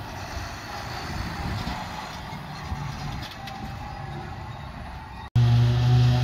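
John Deere tractor engine running steadily as it tows a silage trailer. About five seconds in, the sound cuts abruptly to a louder, steady engine hum with a whine above it from a John Deere 9800i self-propelled forage harvester at work.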